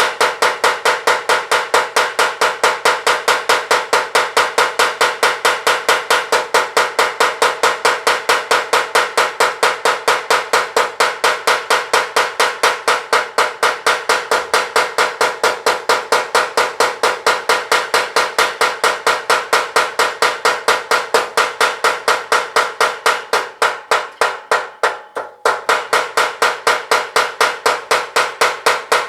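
Mechanical blacksmith's power hammer pounding steel in rapid, even blows, about four to five a second, each with a metallic ring, while forging a sickle. The blows soften and break off for a moment about 24 seconds in, then resume.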